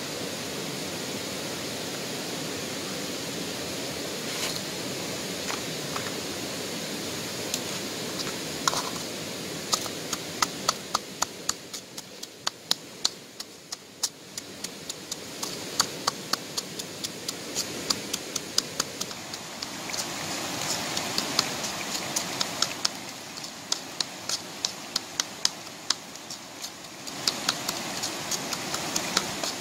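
Stone pestle pounding garlic, chili and salt in a coconut-shell mortar: rapid, regular knocks that start about ten seconds in. Underneath, the steady rush of a stream.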